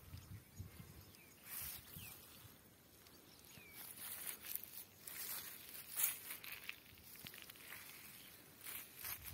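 Footsteps in dry grass and weeds, with vegetation rustling against the walker in irregular soft bursts.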